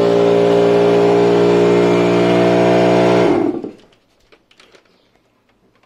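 Stanley air compressor running steadily, its motor hum mixed with a rush of air. It cuts off suddenly about three and a half seconds in, leaving only faint handling clicks.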